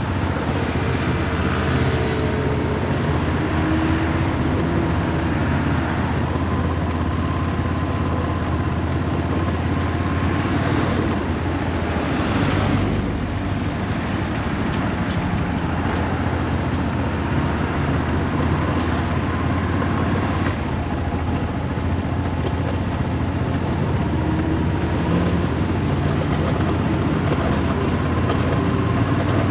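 Yamaha SRX400's air-cooled single-cylinder engine running steadily under way, with wind and road noise rushing over the microphone. The owner suspects the clutch is slipping and the transmission has failed.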